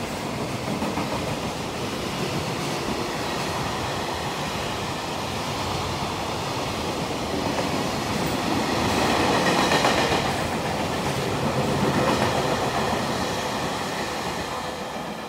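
Freight train of container flat wagons rolling past close by, its wheels running steadily on the rails. It is loudest about ten to twelve seconds in and fades near the end as the last wagons go by.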